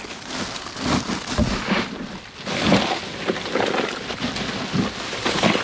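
Loose ice cubes clattering and rattling as they are scooped and poured over freshly processed chickens.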